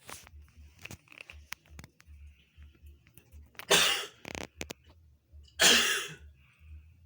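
A person coughing: two loud coughs about two seconds apart, the first followed by a shorter one.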